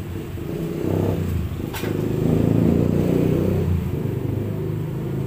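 A motor vehicle engine running close by, growing louder over the first couple of seconds and fading toward the end, with a single sharp click about two seconds in.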